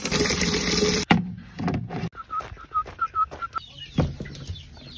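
Tap water splashing into a plastic chick waterer base in a stainless steel sink, cutting off suddenly about a second in. Then a few knocks, and baby chicks peeping in a run of about seven short high cheeps.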